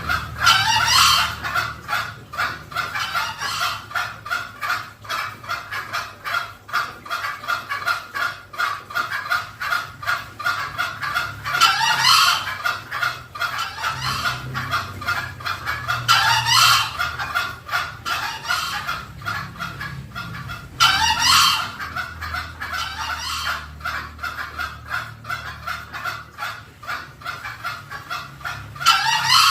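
Green junglefowl calling: a fast, continuous run of clucking notes, broken five times by a louder, short rising crow.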